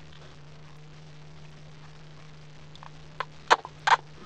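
Lips smacking together after lip gloss is put on: three short, sharp smacks starting about three seconds in, over a faint steady low hum.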